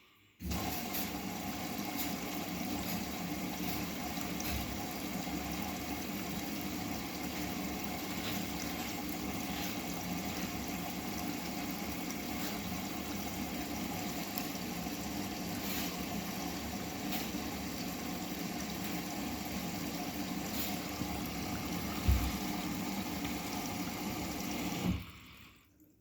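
Bosch WGA25202TR washing machine with water rushing through it: a steady flow that starts suddenly and cuts off suddenly about a second before the end. A single low thump comes about three seconds before it stops.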